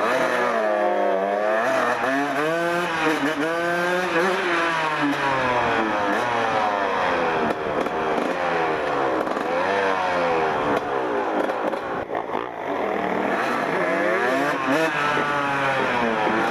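1994 Kawasaki KX 125 single-cylinder two-stroke motocross bike ridden hard, its engine note climbing under throttle and dropping back over and over, with a short easing off about twelve seconds in.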